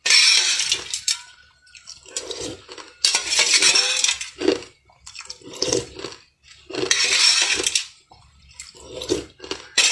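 Loud slurping of liquid from a spoon: three long sucks about three seconds apart, a fourth beginning at the very end, with wet mouth sounds and liquid dripping from the spoon into a metal pot between them.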